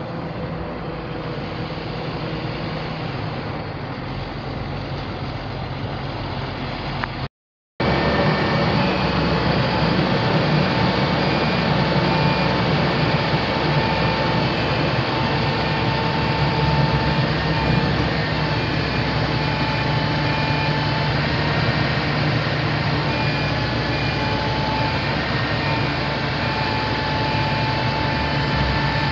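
International DT466 inline-six diesel engine of a work truck running steadily. The sound cuts out briefly about seven seconds in, then comes back louder, with a steady high whine over the engine.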